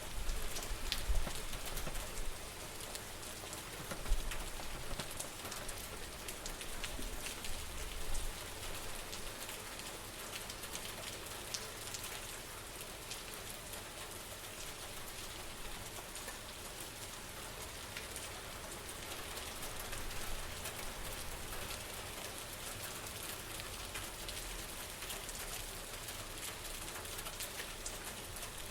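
Steady rain falling on hard surfaces, a constant hiss with many fine drop ticks, and a few low thumps in the first several seconds.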